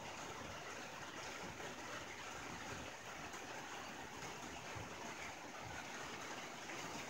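Rain falling steadily on a tin roof: an even hiss of drops with no breaks.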